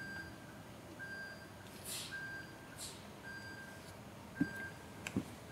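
A vehicle's reversing alarm beeping steadily, about one beep a second. Two sharp knocks come about four and five seconds in.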